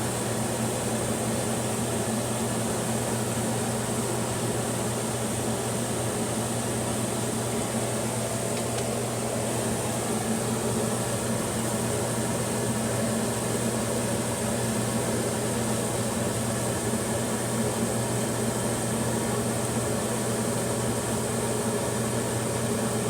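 Loud fume-extraction fan running steadily, a constant whooshing hum.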